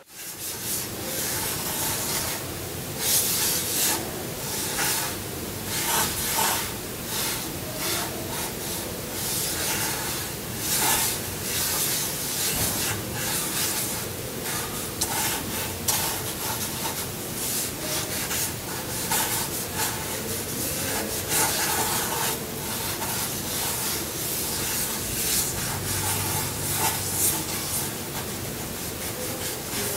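Sticks of chalk scraping over rough paving slabs in many irregular strokes as pictures are drawn on the ground.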